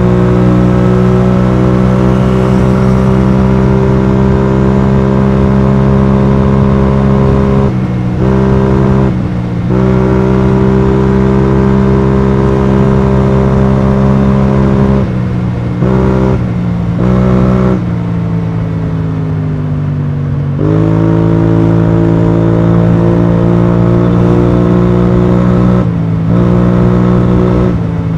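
BMW C650GT scooter's parallel-twin engine running through an Akrapovic exhaust under steady throttle, with several brief throttle lifts where the note dips and a slow drop in pitch before it picks up again.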